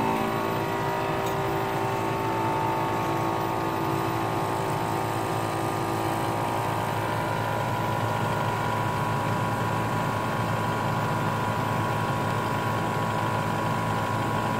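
Portable 12-volt air compressor, wired to the vehicle's battery, running steadily as it pumps up a 4WD tyre from just under 25 psi toward 40 psi.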